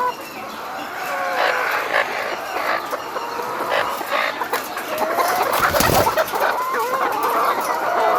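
A large flock of hens clucking and calling all at once, many overlapping short calls over a constant din.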